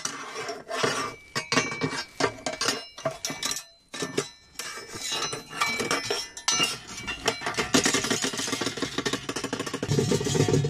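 Irregular metallic clattering and clinking from the steel slide gate of a concrete-pipe badger trap being rattled, to drive the badger out of the pipe into the catch cage. Music starts near the end.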